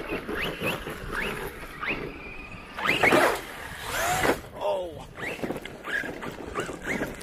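Electric motor of a brushless RC stunt truck whining up in short rising bursts, about two a second, as the throttle is blipped while driving. It winds down once in a falling whine about four seconds in.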